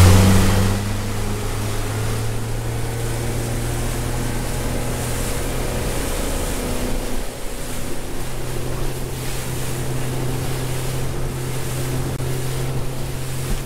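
Small motorboat under way: its engine running with a steady low hum over water rushing and splashing past the hull. Louder for the first second, then steady.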